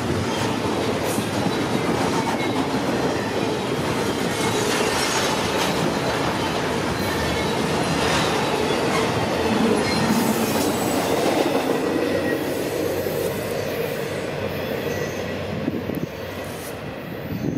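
Intermodal freight cars, double-stack container well cars and trailer-carrying spine cars, rolling past: steady wheel and rail noise with sharp clicks over the rail joints and a thin, high wheel squeal. The sound eases off and drops near the end as the last car goes by.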